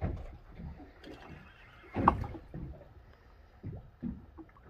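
Water slapping and knocking against a small boat's hull in irregular thumps, the loudest about two seconds in.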